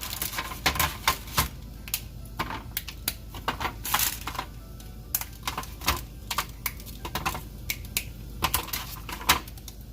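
Frozen white chocolate bark studded with M&Ms being snapped apart by hand: an irregular run of sharp cracks and clicks as the hard pieces break.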